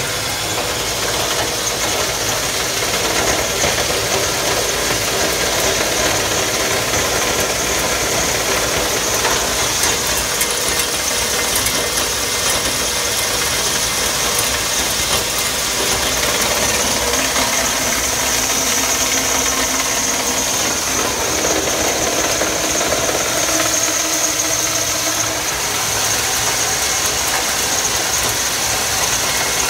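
Stainless-steel pomegranate seed-removing juice extractor running on its electric motor while processing fruit: a steady, even machine noise with a constant high whine.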